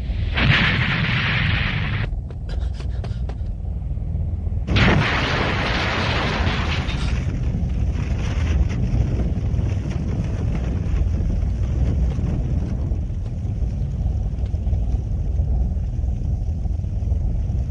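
Cartoon battle sound effects: a continuous deep rumble with two loud explosion-like blasts, one lasting about two seconds at the start and another about five seconds in, with fainter crackling between them.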